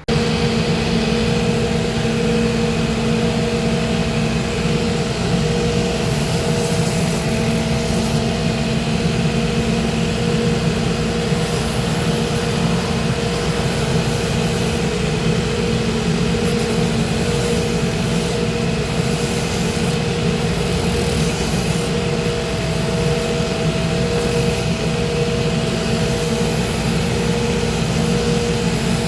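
Shoe repair finishing machine running, a steady loud motor hum with a higher whine, while a built-up boot sole and lift are sanded down on it; a higher sanding hiss comes and goes as the sole is pressed to the wheel.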